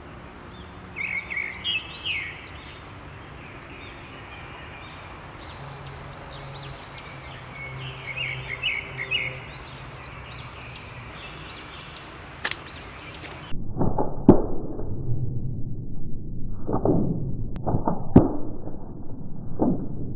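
Birds chirping over quiet outdoor background, then a single sharp snap as the bamboo slingshot's nail trigger releases and fires the dart. After it come several muffled knocks and thuds, as the dart hits a drink can.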